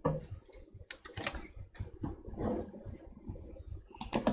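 Scattered light clicks and taps of drawing instruments, a plastic set square and pencil, being handled on paper on a desk.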